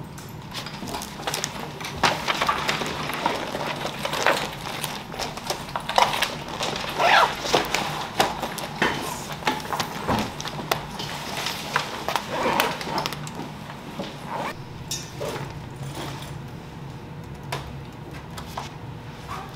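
Students packing up at the end of a class: irregular knocks and clatter of belongings, chairs and bags, busiest in the first two-thirds and thinning toward the end, over a steady low hum.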